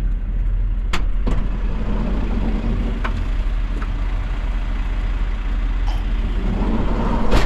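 A van's engine idling with a steady low rumble, over a few light knocks and clicks. Near the end a loud bang: the van's sliding side door shutting.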